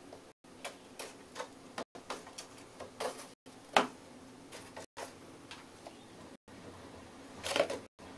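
A hamster scurrying over a hard laminate floor with a bone-shaped dog biscuit in its mouth; its claws and the biscuit make irregular light clicks and taps, with a louder knock about four seconds in and another near the end.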